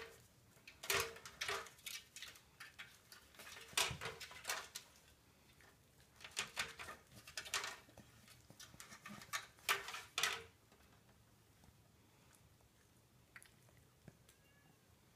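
A plastic cat track toy being batted by a cat's paw: the ball clatters and knocks around the circular channel in four quick bursts of sharp clicks with a light plastic ring, spread over about ten seconds.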